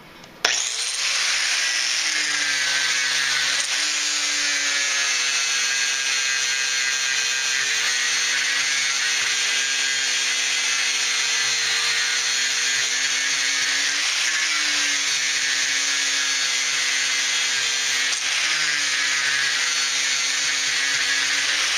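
Angle grinder with an abrasive disc starting up about half a second in, then running steadily as it grinds thick body filler (Bondo) off a car fender. Its pitch dips briefly a few times as it bites harder into the filler.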